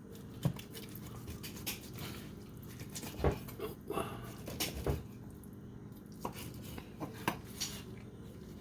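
Kitchen knife cutting a cooked ribeye away from the bone, giving irregular sharp clicks and taps of the blade against the board, over a steady low hum.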